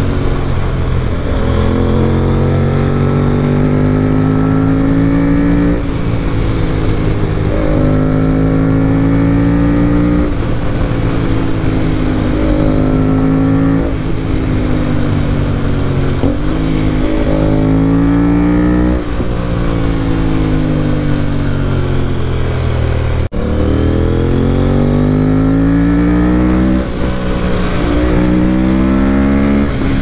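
Aprilia RS457's 457 cc parallel-twin engine breathing through an aftermarket Akrapovic-replica stainless full-system exhaust, heard from on the bike while riding. The engine note climbs under throttle and drops back at each gear change, about six times, with stretches where it falls away off the throttle.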